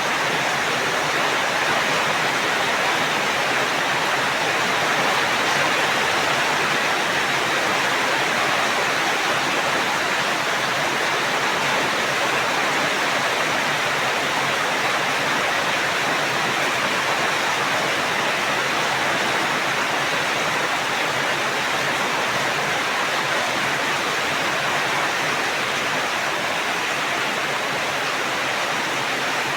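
Steady heavy rain, an even unbroken hiss with no separate drops or thunder standing out.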